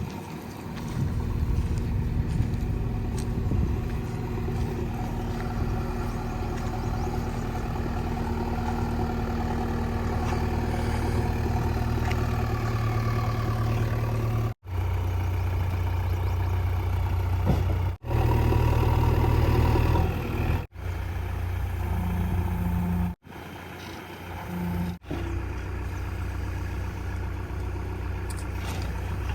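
Diesel engine of a JCB 3DX backhoe loader running steadily, its pitch and load shifting as it works, with the sound cutting off abruptly and resuming several times in the second half.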